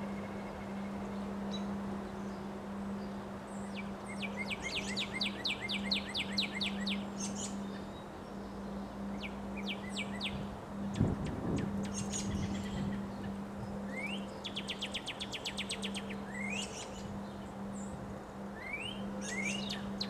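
Small birds chirping and singing, with two rapid trills of quick repeated notes and several short rising calls. A steady low hum runs underneath, with a low thump about halfway through.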